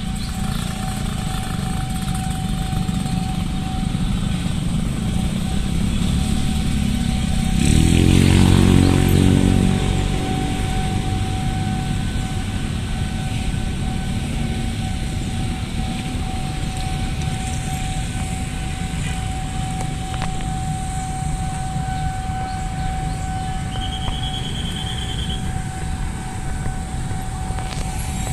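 Busy road traffic at a level crossing: motorcycles and other engines running and passing, with a steady thin tone throughout. A louder engine passes close by about eight seconds in.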